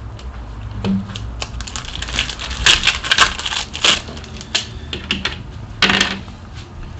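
Glossy Panini Prizm trading cards being flipped through by hand: irregular clicks and flicks of card stock sliding off one another. A dense run of louder flicks comes in the middle and another near the end.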